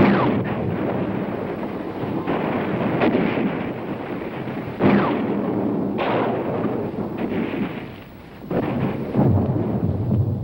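Artillery fire and shell explosions: heavy booms, one right at the start and others about five and six seconds in, over continuous rumbling.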